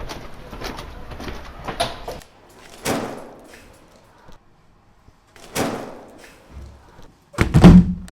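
Foley sound effects: about two seconds of busy clattering, then single knocks about three and five and a half seconds in, ending in a loud, deep, door-like slam near the end.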